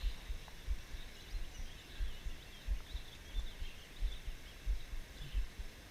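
Faint bird chirps over a steady run of low, dull thumps, about three every two seconds.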